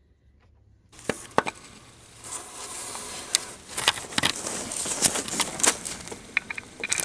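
Gloved hands handling the belt tensioner pulley and its bolt: rustling with scattered sharp metal clicks and knocks, starting about a second in.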